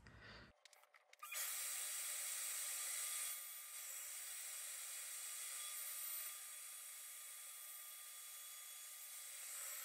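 Shaper Origin handheld CNC router running at high speed as it cuts a circle in a walnut board: a steady high whine that starts suddenly about a second in and eases slightly in level twice.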